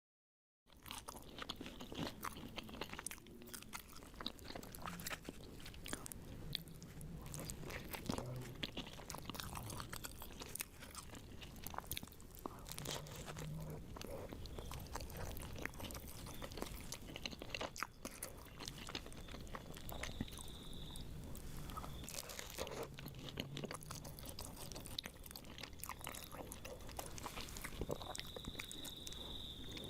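Close-miked eating: someone biting and chewing crunchy food, with many crisp, irregular crunches throughout.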